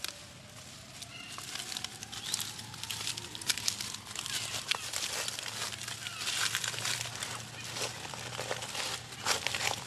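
Dry fallen leaves crackling and rustling under a baby macaque walking through them: a dense run of short crackles that thickens about two seconds in.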